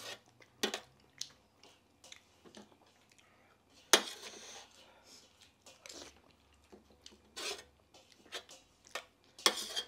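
A metal spoon clinking and scraping against a brass plate as food is scooped up, with several sharp clinks, the loudest about four seconds in. Chewing sounds come between them.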